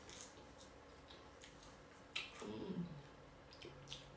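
Quiet eating sounds: a few faint mouth clicks and a sharper smack a little past two seconds in, followed by a short low hummed 'mm'.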